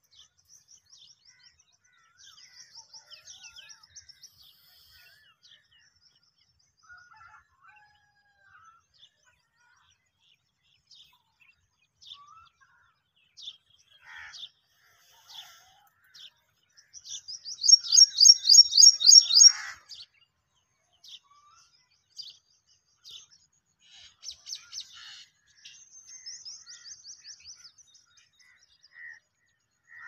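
Small birds chirping and calling, with several rapid trills of high repeated notes; the loudest, a fast run of high chirps, lasts about three seconds just past the middle.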